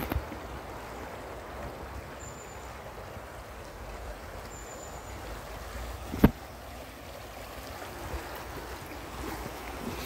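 Shallow river flowing over stones, with wind rumbling on the microphone. A brief rustle of leaves at the start and a single sharp knock about six seconds in.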